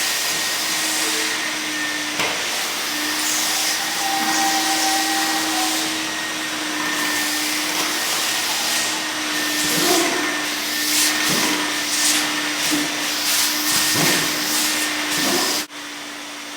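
Floor-restoration power equipment running steadily, a rushing, vacuum-like noise over a constant hum, with irregular rasping streaks in the second half. The level drops abruptly near the end, and quieter running continues.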